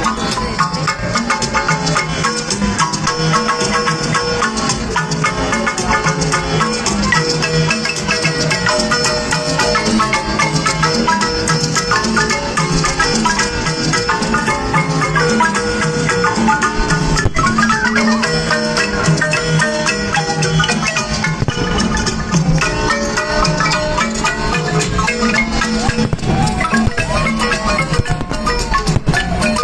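Music with marimba-like mallet percussion, rapid pitched notes over a steady rhythm, with rattles.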